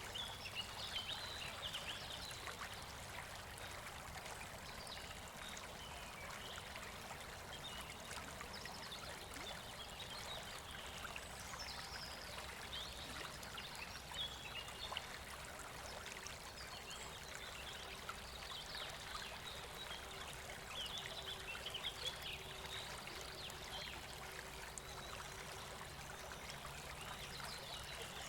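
Faint running river water with small birds chirping on and off throughout.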